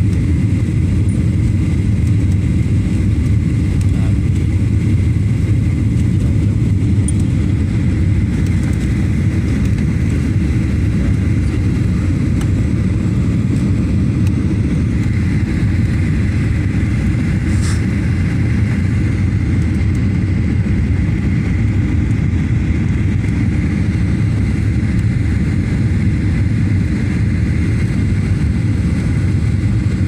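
Steady low roar of jet engines and rushing air in the cabin of a Boeing 737 airliner on its landing approach with flaps extended. A faint high whine joins about halfway through, with a single short click shortly after.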